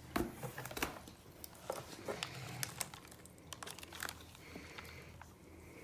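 Plastic shipping bag crinkling, with irregular crackles as it is handled and opened.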